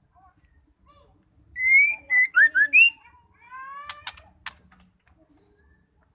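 Female white-rumped shama singing: a loud run of short rising whistles about a second and a half in, then softer rising whistles broken by three sharp clicks.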